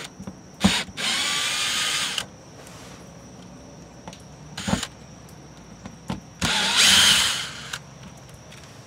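Cordless drill-driver backing out the screws of an RV's city water inlet flange: two runs of about a second each, the whine rising as the motor spins up. A couple of short sharp knocks come between the runs.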